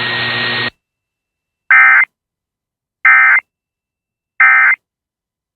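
Emergency Alert System end-of-message signal: three short buzzing bursts of SAME data tones, evenly spaced about a second and a half apart, marking the end of the tornado warning. Before them, a moment of steady broadcast hiss cuts off.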